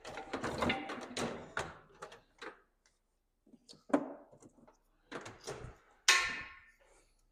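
Tools and small parts being handled: a run of irregular clicks, rattles and knocks, with one sharper knock that rings briefly about six seconds in.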